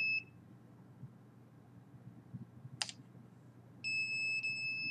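Alert tone of a handheld RF detector: a steady, high electronic tone that stops just after the start and sounds again about a second before the end, with a single sharp click near the middle.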